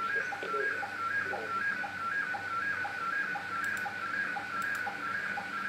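Slow-scan television (SSTV) signal received from the QO-100 satellite: a steady electronic tone that steps up and down between two pitches in a regular rhythm, with a fainter warble under it. The regular dips are the line-sync pulses of an SSTV picture being sent.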